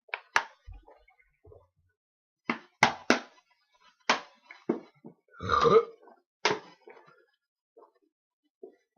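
A person belching once, long and pitched, about five and a half seconds in, from gulped fizzy soda. Around it come about eight short, sharp sounds.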